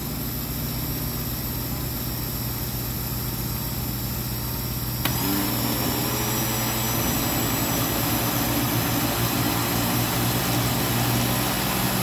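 Electric countertop blender motor running steadily while blending a thick muffin batter of flour, eggs, milk and oil. About five seconds in there is a click, and it runs a little louder after it.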